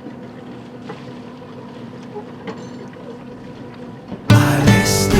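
A boat's engine running with a steady hum. About four seconds in, loud music starts suddenly over it.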